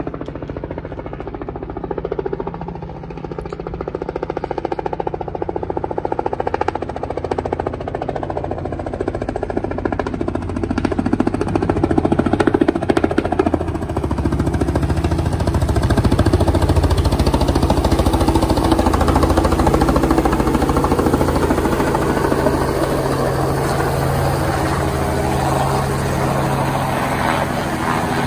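Helicopter running, its rotor blades giving a rapid pulsing beat over the engine noise; it grows louder over the first half and then holds steady.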